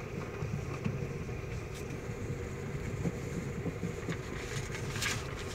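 Steady engine and tyre noise of a Toyota car being driven, heard from inside the cabin.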